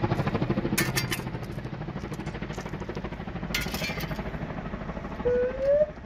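Firefighting helicopter flying overhead, its main rotor beating in a fast, steady pulse. Two short rushes of noise come about a second in and again past three and a half seconds, and a short rising tone comes near the end.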